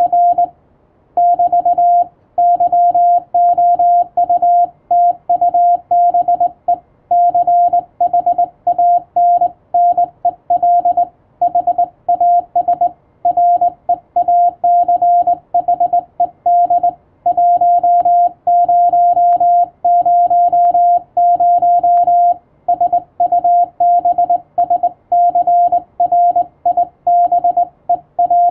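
Morse code (CW) being sent: a single steady beep tone keyed on and off in quick dots and dashes, with short pauses between words.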